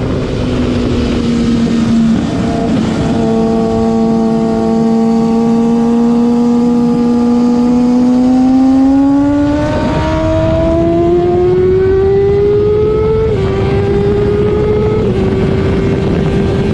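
Sport motorcycle engine holding steady revs through a corner, then revving up hard as the bike accelerates out onto a straight, with two quick upshifts near the end.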